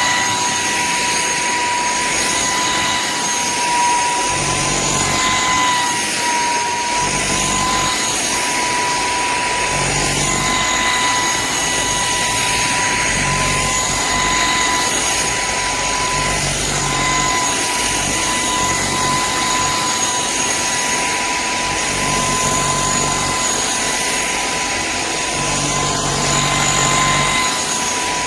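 Cordless stick vacuum's motor running steadily with a high whine over a rushing-air noise.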